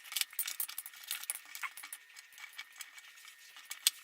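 Carbon-fibre frame plates and small steel screws clicking and clinking as they are handled and set down together: a quick, irregular stream of light taps, with a sharper knock near the end.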